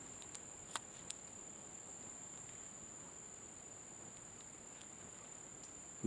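Faint, steady, high-pitched drone of insects in summer, with a few light clicks in the first second or so.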